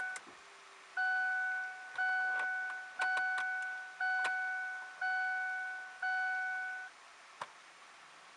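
2002 Ford Focus dashboard warning chime sounding about once a second, each tone fading away, about seven times before it stops about seven seconds in. A few sharp clicks of the blower fan speed knob being turned through its settings sound between the chimes.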